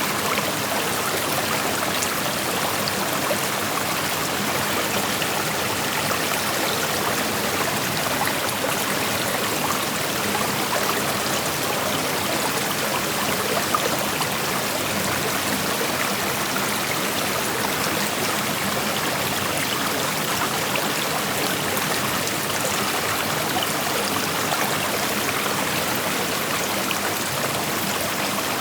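Creek water flowing and babbling over rocks, a steady even rushing with small splashes and trickles.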